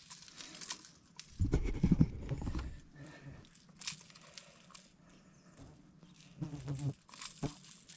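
Knocks and thumps of a freshly landed pike being handled and unhooked in a canoe, with a burst of rapid knocking about one and a half seconds in and scattered clicks after it.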